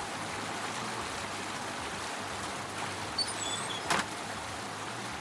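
Hot tub's bubble jets running, the water churning and fizzing steadily over a low hum. A single sharp click comes about four seconds in.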